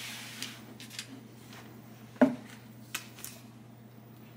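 Silicone spatula spreading thick batter in a parchment-lined sheet pan: a soft scrape at first, a few light clicks, and one sharp knock about two seconds in.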